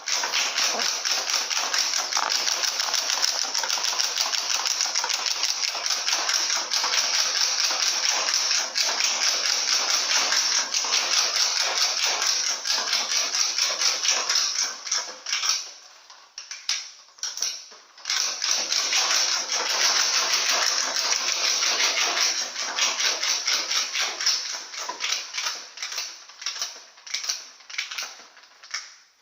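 Motorcycle fitted with a big, loud aftermarket exhaust, running hard with a fast, rattling stream of exhaust pulses. It drops off about sixteen seconds in, comes back up, then falls away in uneven surges near the end.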